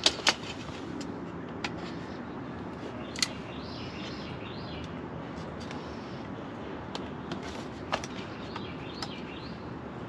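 Outdoor background ambience: a steady noise bed with birds chirping faintly at times, and a few sharp clicks scattered through it.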